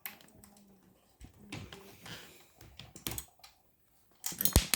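Small metal clicks and taps as washers and bolts are fitted by hand to an electric scooter's brake caliper, with a sharper knock near the end.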